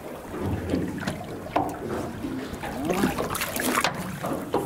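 Sea water splashing and lapping at the side of a small boat as a hooked fish is brought up to the surface, with a few sharp splashes and wind on the microphone.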